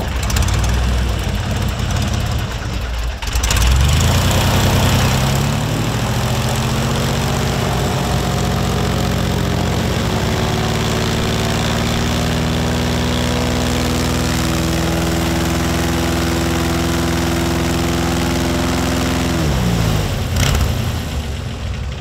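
Airboat engine and propeller running up to full throttle, holding a steady drone for about fifteen seconds, then throttling back near the end. Its blast drives about 60 mph of wind against a vinyl fence panel and buffets the microphone. There is a single sharp knock near the end.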